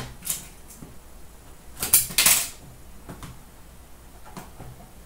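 A sealed box of hockey cards being handled and opened by hand: a few short scratchy rustles and scrapes of its packaging, the loudest about two seconds in.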